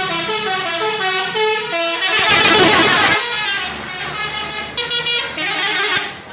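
Indonesian bus 'telolet' horns: a multi-tone horn playing a quick tune of short notes stepping up and down. About two seconds in comes a louder, harsher blast of about a second, then the tune starts again.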